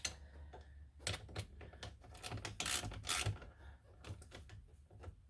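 Socket ratchet clicking in short irregular runs as a 5.5 mm screw is driven back into the steering column shroud.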